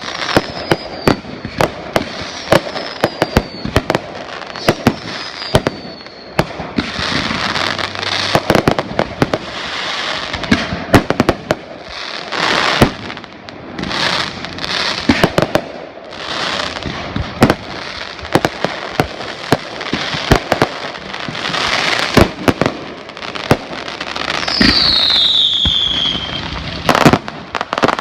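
Fireworks display: a rapid string of sharp bangs mixed with stretches of hissing, crackling bursts. Several short whistles glide down in pitch in the first few seconds, and a long, loud falling whistle comes near the end.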